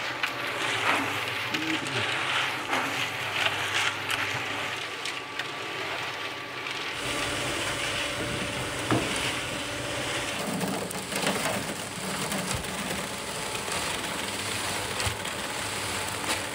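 Small electric cement mixer running, its turning drum churning a wet sand-and-gravel concrete mix in a steady mechanical churn with scattered knocks.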